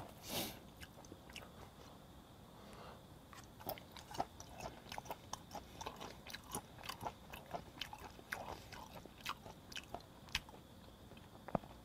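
Close-miked chewing of thick-cut raw flounder sashimi: soft, irregular wet mouth clicks and smacks for several seconds. A faint steady high chirring of crickets runs behind it.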